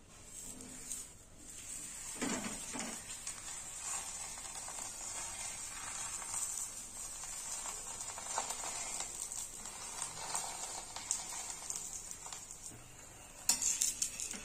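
Aloo paratha sizzling in ghee on a hot tawa over a full gas flame, a steady hiss. Near the end a metal spatula clicks and scrapes against the tawa.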